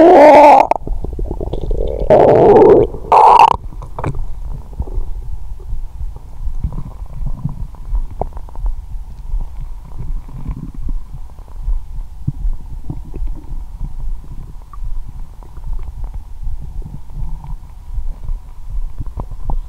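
Stomach gurgling picked up by a lapel microphone pressed to the belly: loud gurgles in the first few seconds, then softer, irregular low rumbles.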